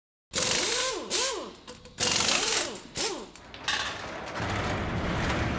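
Power-tool sound effects: a tool whirring in about four short bursts, its pitch rising and falling with each trigger pull, followed by a low rumble building toward the end.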